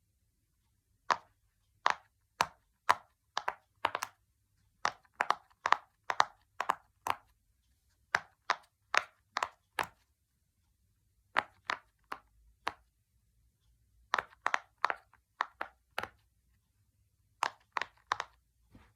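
Silicone Pop It fidget toy being pressed bubble by bubble: a run of sharp separate pops, about two a second, with short pauses between runs.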